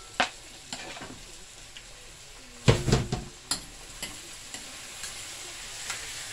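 Vegetables frying in a stainless steel pan with a steady sizzle as chopped sweet pepper is scraped in and stirred. A few loud knocks of a utensil or board against the pan come about three seconds in, with lighter clicks of the stirring around them.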